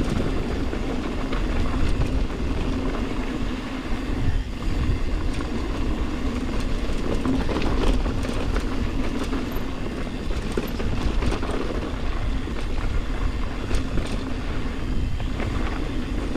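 Ibis Ripmo mountain bike rolling fast down a dirt singletrack: a steady rumble of tyres on the dirt, with small clicks and rattles from the bike over the bumps.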